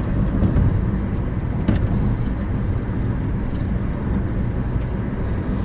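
Steady low rumble of tyre and engine noise inside a moving car's cabin, with one brief click a little under two seconds in.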